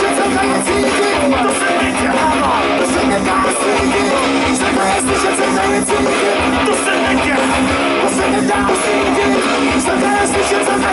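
Live rock band playing at full volume: electric guitar and bass guitar over a drum kit with a steady beat, heard from the crowd.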